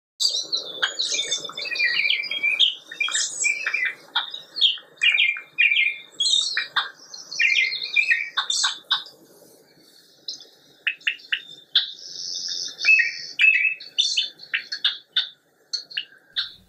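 Birdsong: a busy run of high chirps and warbling phrases, with a gap of about a second some ten seconds in before the singing picks up again.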